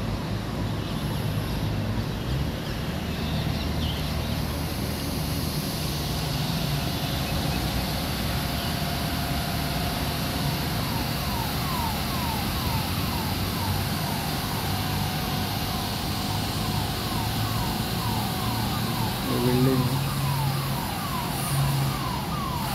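Steady rumble of bus engines and road traffic. From about halfway a rapid repeating chirp comes in, about two a second, and a brief voice-like call sounds near the end.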